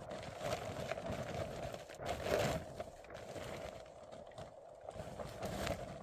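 Footsteps crunching in deep snow, a few uneven steps, the loudest about two seconds in and softer in the second half.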